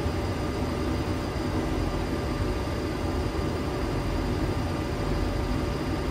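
Steady flight-deck noise of a Boeing 737-800 in descent: a low, even rushing drone with a few faint steady tones above it.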